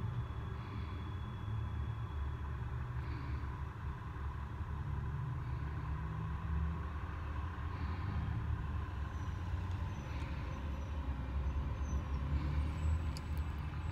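Steady low rumble of city street traffic: cars, pickup trucks and a bus driving past.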